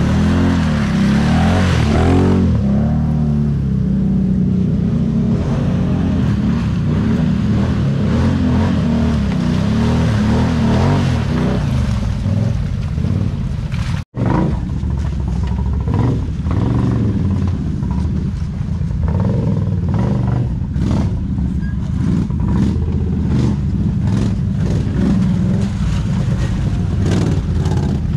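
ATV engine running hard off-road, its pitch rising and falling as the throttle is worked, with some rattling and clatter. The sound drops out for an instant about halfway through.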